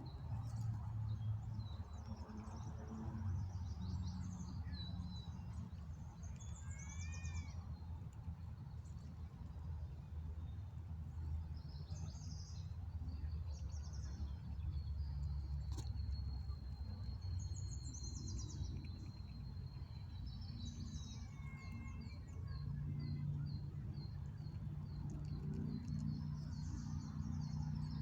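Birds chirping and calling on and off over a steady low rumble, with a run of short repeated high notes near the end.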